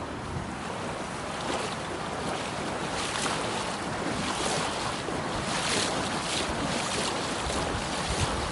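Muddy floodwater from the overflowing Volturno river rushing across a road, with irregular louder surges of splashing as someone wades through it.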